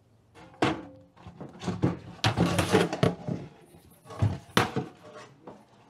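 A plastic bucket being handled and turned on a workbench: a series of knocks, clunks and scrapes.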